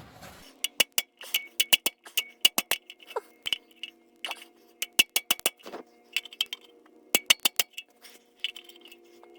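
Hand impact screwdriver being struck repeatedly with a hammer. Sharp metallic strikes with a bright ring come in quick, irregular clusters as it tries to break loose a seized, corroded oil pan bolt.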